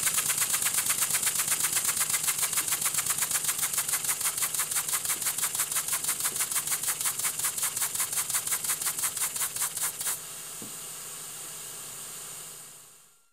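Small double-acting oscillating-cylinder model steam engine running on compressed air: a rapid, even chuffing of exhaust puffs that gradually slows. It stops about ten seconds in, leaving a steady hiss that fades out.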